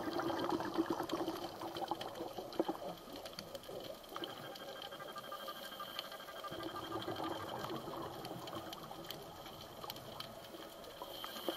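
Water heard underwater: a bubbling, gushing rush, loudest in the first few seconds and then easing to a quieter wash, with scattered sharp clicks.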